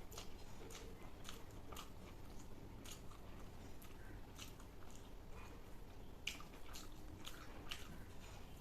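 A person chewing and eating Schezwan fried rice and veg Manchurian: faint, irregular wet mouth clicks and smacks, a few a second.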